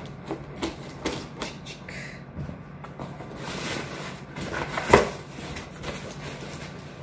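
Cardboard shipping box being opened by hand: scissors snipping at the packing tape, cardboard flaps rustling and scraping as they are pulled back, and one louder thump of cardboard about five seconds in.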